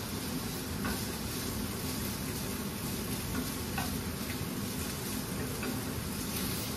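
Diced sausage sizzling in a hot frying pan as it is stirred with a spatula, with a few light scrapes of the spatula against the pan.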